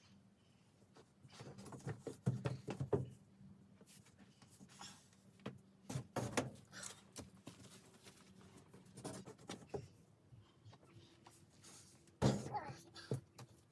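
Irregular knocks, thumps and scrapes of objects being handled and moved about in a small room, with the loudest thud about twelve seconds in.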